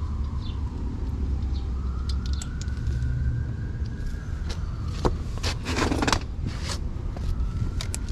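Steady low rumble of road traffic, with a faint tone slowly falling and rising over it. A few sharp clicks and a short rustle of handling come about five to six seconds in.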